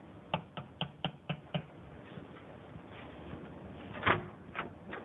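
Light clicks and taps of items being handled on a kitchen counter: six quick clicks, about four a second, in the first second and a half, then a few more near the end.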